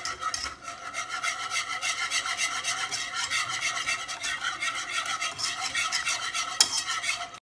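Wire whisk beating briskly in a saucepan of warm liquid custard base, with rapid, even strokes of the wires scraping and clinking against the pan as cold liquid cream is whisked in. One louder clink comes near the end, and the sound cuts off suddenly just before the end.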